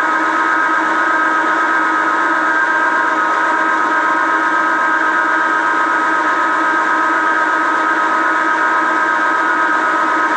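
1955 Meuser metal lathe running at a constant speed while machining an aluminium disc: a steady mechanical whine made of several high tones over the hum of the machine, unchanging throughout.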